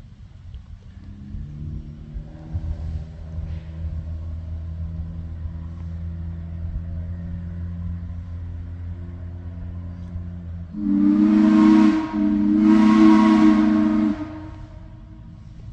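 Narrow-gauge locomotive running, then its whistle sounding two loud blasts, the second longer, about eleven seconds in.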